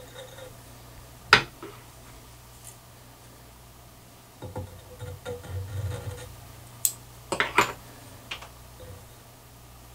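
Small hand-tool sounds at a fly-tying vise: a sharp click about a second in as a tool is handled, a stretch of hands rustling against the bench, then a few quick clicks and snips from fly-tying scissors trimming material.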